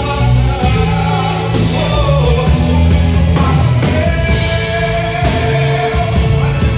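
Live band music with a singer: a Christian song played by the band, with steady bass notes under the voice.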